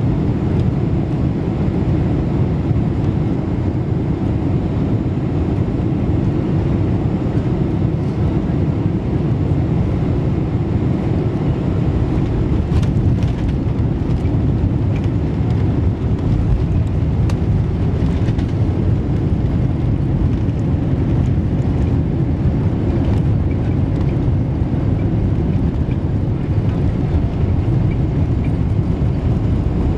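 Cabin noise inside a Boeing 747-400 on its landing roll: a steady, loud, low rumble of the engines and the runway. A few faint rattles come near the middle.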